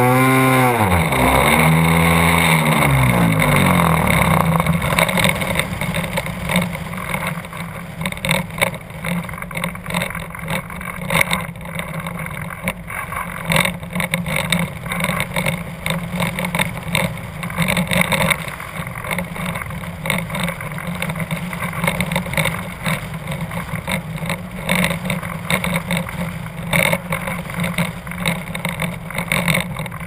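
O.S. 1.60FX two-stroke glow engine on a giant-scale RC airplane dying in flight: its note falls steeply and stops within the first few seconds, fuel-starved because the clunk came off the fuel pickup line. After that, gusty wind rushes over the onboard camera as the plane glides in with the engine dead.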